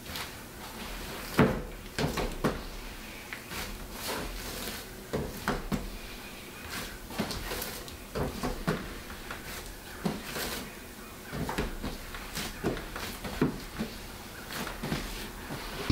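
Irregular light knocks, clicks and clatters of containers and utensils being handled and set down on a wooden bench, with a paper bag being handled, during bread-dough prep.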